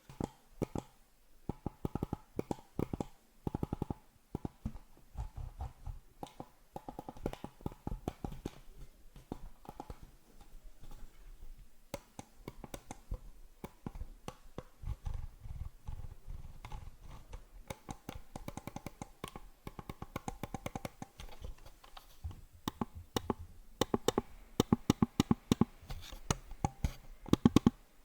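Computer mouse clicked rapidly close to the microphone, in quick runs of sharp clicks that get louder near the end.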